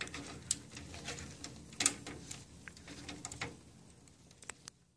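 Cable being handled and fitted to a computer card: scattered small clicks and rustles of the cable and connector against the card and chassis, over a faint low hum.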